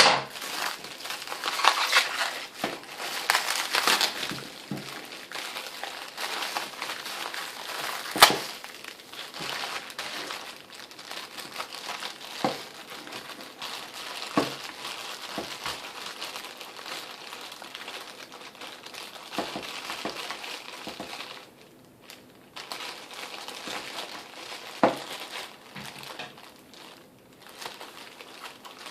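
Packaging crinkling and rustling as it is handled and opened by hand, with scattered sharp clicks and knocks; the loudest knock comes about eight seconds in.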